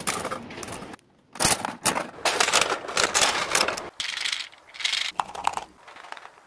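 Gachapon capsule-toy machine's crank being turned, clicking and clattering, then clicks and rustling of toy capsules and a foil-wrapped surprise egg being handled.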